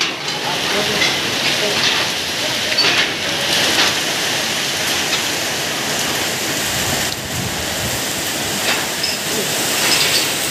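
Heavy typhoon rain pouring down with strong wind gusting, a steady loud rush with brief surges.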